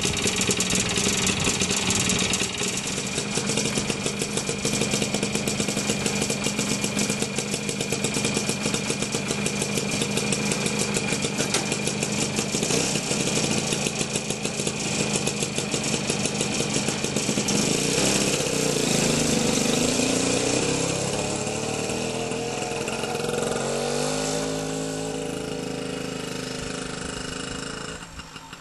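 BSA D7 Super Bantam's 175 cc single-cylinder two-stroke engine idling with a fast, steady beat, then pulling away. From about two-thirds of the way through, its revs rise and fall as it changes gear, and it fades into the distance near the end.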